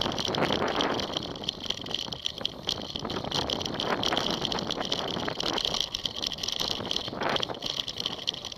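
Mountain bike ridden fast over bumpy grass, heard from a camera mounted on the bike: a continuous rattling and rapid clicking from the bike as it jolts over the ground.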